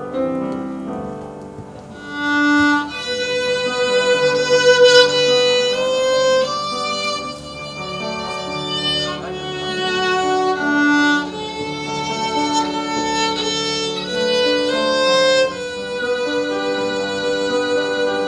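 Violin playing a slow, lyrical melody of held notes with vibrato, coming in strongly about two seconds in over a softer accompaniment.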